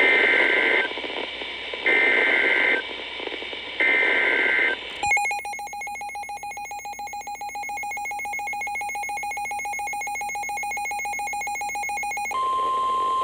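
Emergency Alert System alert opening: three short data bursts of the SAME header, about two seconds apart, then the buzzing two-tone EAS attention signal for about seven seconds. Near the end it switches to a steady single-pitch NOAA Weather Radio alert tone. Together they announce an incoming severe thunderstorm warning.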